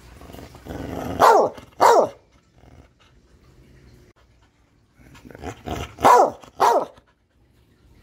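A brindle pit bull–type dog barking up at someone: a short growl builds into two loud barks about a second in, each falling in pitch, then after a pause of a few seconds a second run of barks, the loudest two near the end.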